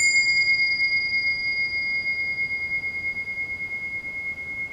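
A small bell or chime struck once, ringing with a clear high tone that slowly fades with a slight waver.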